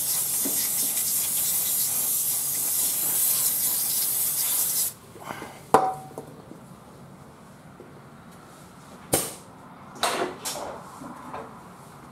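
Aerosol cleaner spraying in one long steady hiss for about five seconds, cleaning the grime off around a Tuff Torq transaxle's fill plug, then cutting off. A few sharp clicks and knocks follow.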